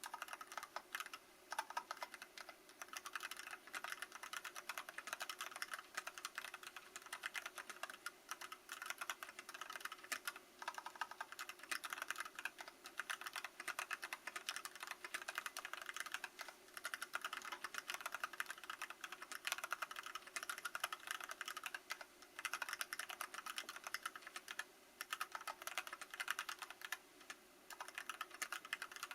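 Archon FX mechanical keyboard with Kailh Box Black linear switches and an aluminium plate, stock and unmodified, being typed on: a rapid, continuous stream of key clacks with a few short pauses.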